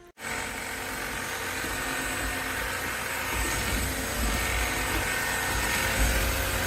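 Kenmore DS1020 16V cordless stick vacuum running: a steady whine over rushing air that starts suddenly just after the beginning, with a low rumble growing from about halfway through.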